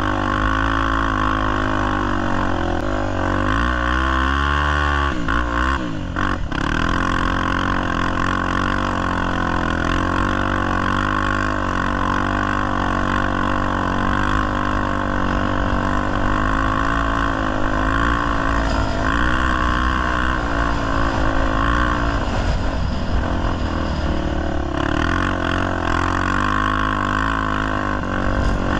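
Honda XR250 Tornado's single-cylinder four-stroke engine running under way, its pitch rising and falling with the throttle, with a sharp swing down and back up about four to six seconds in.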